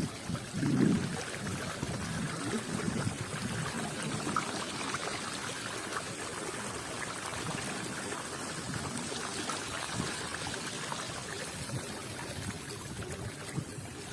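Steady rush of running water, like floodwater flowing in a stream or channel.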